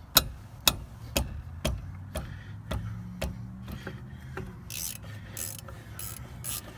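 Hand ratchet and socket working on a 12 mm brake caliper bolt. Sharp clicks come about twice a second at first. From about two-thirds of the way in, short bursts of pawl clicking repeat about twice a second, one with each back stroke.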